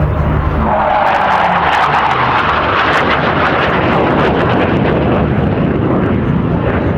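Hawker Hunter jet's Rolls-Royce Avon turbojet making a loud flypast. The jet noise swells about a second in, is at its fullest two to three seconds in, then eases a little.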